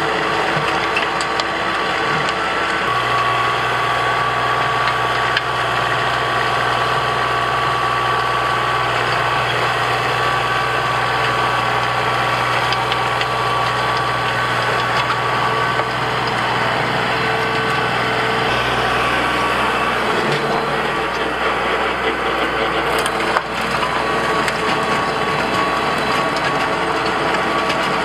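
Kubota L3901 compact tractor's three-cylinder diesel engine running under load while its PTO drives a 6-foot rotary tiller, the tines churning through plowed clay soil in a steady mechanical drone. The low hum shifts about eighteen seconds in, and there is a single sharp knock about twenty-three seconds in.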